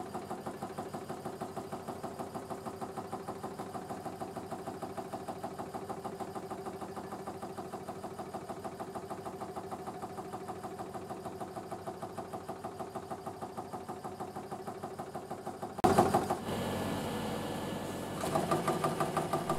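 Half rhombic drive Stirling engine quietly running, an even rhythmic beat of its pistons and crank drive. About sixteen seconds in a sudden louder knock breaks in, followed by handling of the flywheel and the engine running again.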